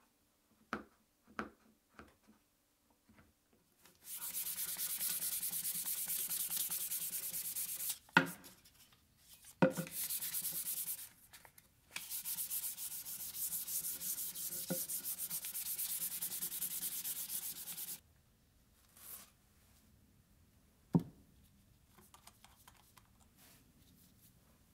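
Sandpaper rubbing by hand on a wooden board: long runs of steady scratchy sanding, broken a couple of times by sharp knocks. A few light clicks come before the sanding starts, and one more knock near the end.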